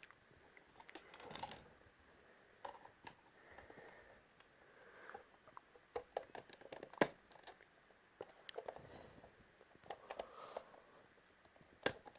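Irregular clicks and taps, like a small plastic device being handled, the loudest a sharp click about seven seconds in, with faint murmuring noise between them.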